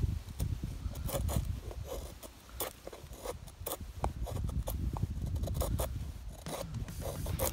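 A D2-steel bushcraft knife shaving curls down a squared wooden batten to make a feather stick: a run of short, irregular scraping strokes of the blade on the wood.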